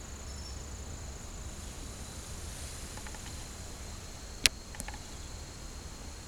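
Insects chirring with a steady high pitch over a low outdoor rumble, with one sharp click about four and a half seconds in and a fainter one just after.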